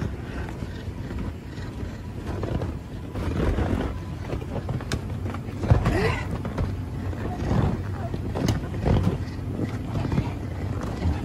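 A background din of scattered voices and shouts over a steady low rumble, with one rising shout about six seconds in.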